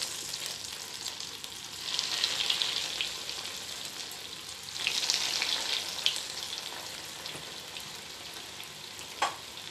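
Breadcrumb-coated chicken rolls sizzling as they deep-fry in hot oil in a frying pan. The sizzle swells twice, about two and five seconds in, as more rolls go into the oil, then settles to a steady hiss, with a short tap near the end.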